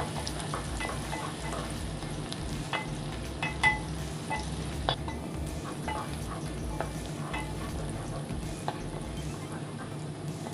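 Sliced onions frying in hot desi ghee on a high flame: a steady sizzle with scattered sharp pops and clicks as a wooden spatula stirs them in the metal pot. The onions are being fried toward a caramelized brown.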